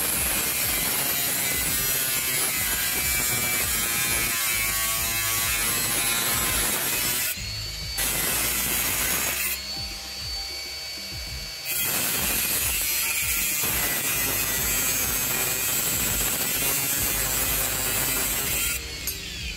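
Angle grinder with a cut-off wheel cutting sheet steel, running loud and steady, with two short breaks in the cut about seven and ten seconds in, and stopping shortly before the end.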